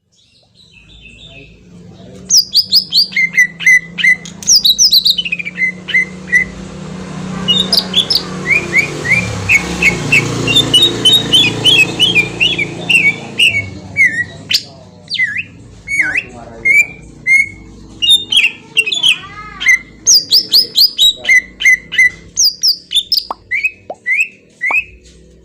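Green leafbird (cucak ijo) singing loudly: fast runs of sharp, high chirps and trills in rapid repeated phrases. A steady rushing background noise with a low hum rises in the middle and fades again.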